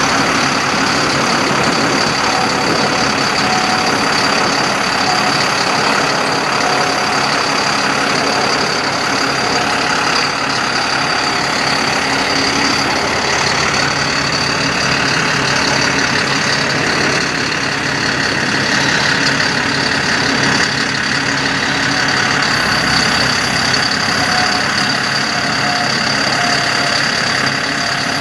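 2007 GMC C7500 truck engine running steadily with the PTO engaged, powering the hydraulics of the Terex Hi-Ranger XT-55 aerial boom while the boom is operated. A steady high tone runs over the engine sound.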